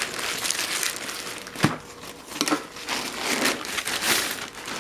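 Packaging crinkling and rustling as a parcel is opened by hand, with a few sharp crackles, the loudest a little over a second and a half in.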